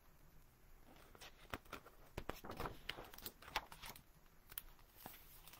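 A picture book being handled and its page turned: soft paper rustling with light taps and clicks, busiest about two to four seconds in.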